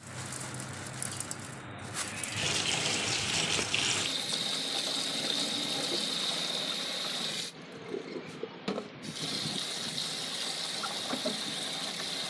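Tap water running into a stainless steel bowl of glutinous rice while a hand swishes the grains to wash them. Near the start, dry rice slides from a plastic bag into the bowl with a light rattle. The rush of water drops away briefly about eight seconds in, then resumes.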